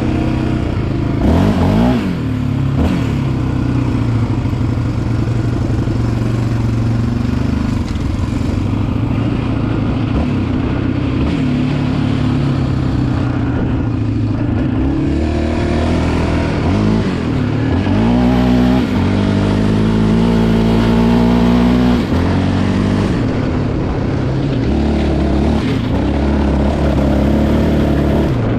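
Yamaha Raptor 700R ATV's single-cylinder engine running under way, revving up and falling back repeatedly as it accelerates and eases off.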